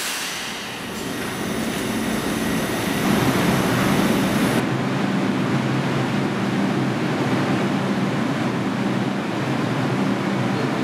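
R142 subway train at the station: a steady rumble with a low electrical hum, growing louder over the first few seconds.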